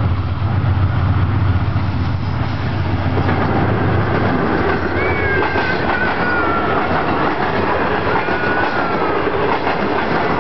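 Pakistan Railways diesel locomotive 6020 running past with a low engine drone for the first few seconds, followed by its passenger coaches rushing and clattering by over the rail joints. Thin, wavering wheel squeals come and go about halfway through.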